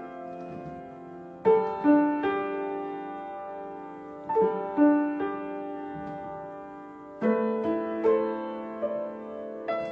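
Slow, gentle piano music: notes and chords struck in small groups every second or few, each left to ring and fade.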